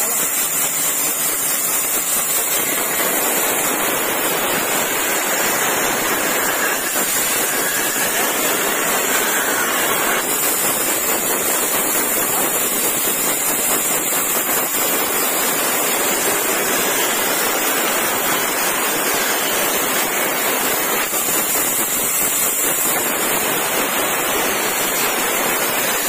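Large table band saw running and cutting through old, weathered timber, a steady even noise.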